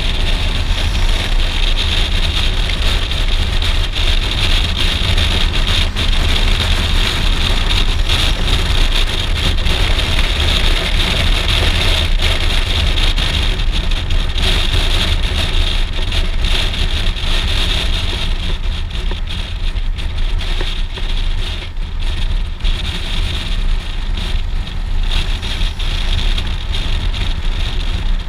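Suzuki V-Strom DL650XT's V-twin engine running steadily as the motorcycle rides along, mixed with wind rushing over a helmet-mounted microphone. The wind hiss thins over the last ten seconds or so as the bike approaches a crossing.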